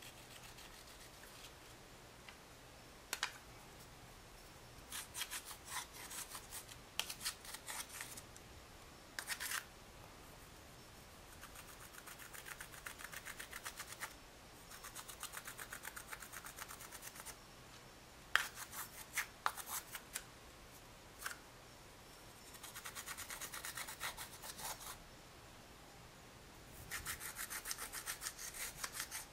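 Metal-tipped dotting tool scraping pressed eyeshadow out of the pans of a plastic palette. It comes in runs of quick scratching strokes a few seconds long, with a few sharp clicks in between.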